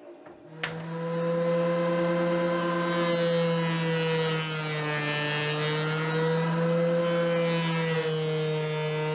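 DeWalt benchtop thickness planer switching on with a click, spinning up over about a second, then running with a steady whine. Its pitch dips slightly a couple of times as it planes red oak boards to thickness.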